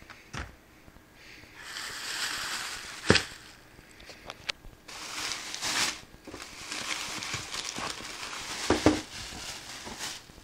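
Plastic bag and paper wrapping crinkling and rustling as they are handled in a cardboard box, in several spells, with a sharp click about three seconds in and a thump near the end.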